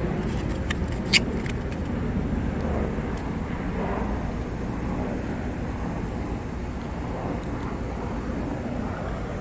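Steady hum of city street traffic, with a few sharp clicks in the first two seconds, the loudest about a second in.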